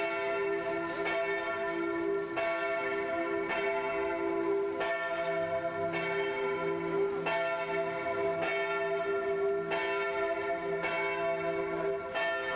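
Several large church bells pealing together, with overlapping strokes about once a second over a sustained ringing hum, from the Gothic bell tower of Bolzano Cathedral.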